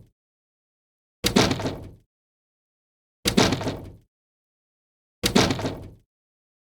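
Three identical short impact sound effects, about two seconds apart, each hitting suddenly and dying away in under a second, with dead silence between: the effect marking each number of a countdown falling over.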